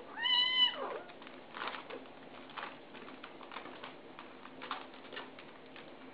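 A kitten gives one high, clear mew in the first second, then small scratching sounds follow as its claws catch in the denim of a jeans leg it is climbing.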